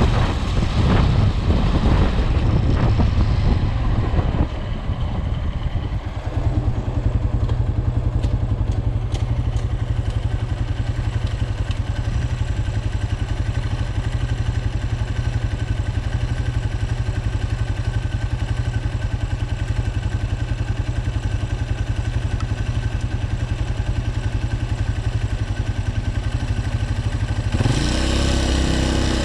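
Vehicle engine running steadily while on the move, easing off briefly about four seconds in, with the engine note rising near the end.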